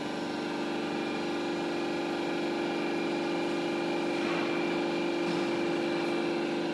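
Hydraulic pump unit of a C-frame high-speed hydraulic press running with a steady hum and a faint high whine while the cylinder drives the ram through its stroke.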